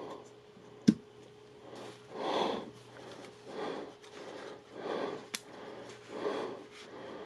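Handling a Sony ZV-1 compact camera: a sharp plastic click about a second in and a lighter click past the middle, amid soft rustling swells roughly once a second.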